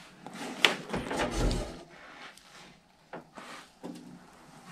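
An old wooden wardrobe door being pulled open, with a sharp click a little under a second in, then louder wooden handling noise over the next half second, and a few faint ticks later.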